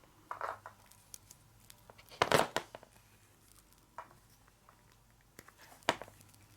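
Crinkling and rustling of a Cat6 cable's aluminium foil shield and plastic jacket being handled, in short scattered bursts with small clicks, the loudest rustle about two seconds in.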